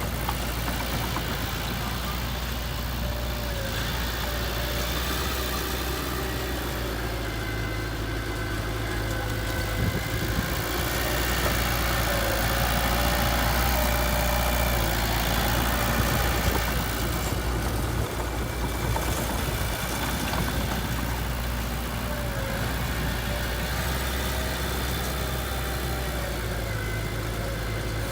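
Heavy machine's engine running steadily at a low idle, getting louder for several seconds in the middle as it works harder, then settling back.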